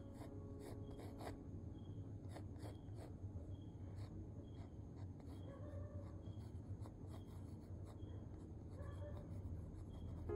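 Mechanical pencil lead scratching on textured drawing paper in quick, short sketching strokes, several a second in irregular bursts, over a faint steady low hum.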